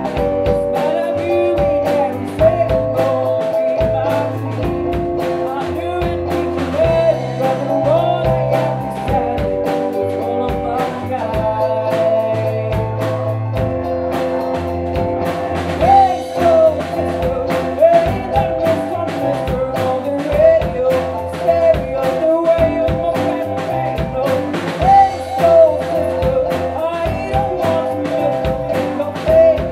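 Live band performing: a woman singing lead over electric guitar, keyboard and drum kit, with a steady drum beat and held keyboard chords.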